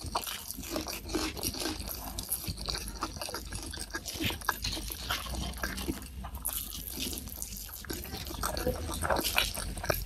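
Close-miked wet chewing and lip-smacking: a person eating soft, saucy boneless chicken feet in soy sauce with rice, with many small irregular clicks and squelches and a brief lull about halfway through.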